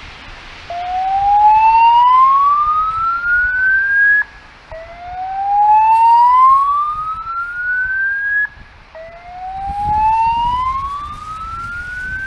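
Fire alarm voice-evacuation speakers sounding a slow whoop tone: three rising sweeps, each about three and a half seconds long, climbing from a low tone to a high one with a short break between them. This is the evacuation signal that alternates with the recorded emergency message.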